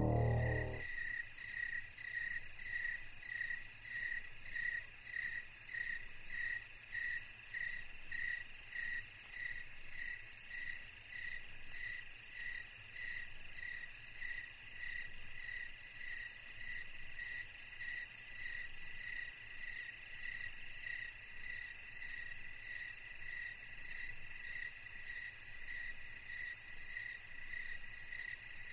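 Crickets chirping at night: a steady high chirp pulsing about twice a second over a fainter continuous insect trill, the pulses blurring into a steadier sound in the second half.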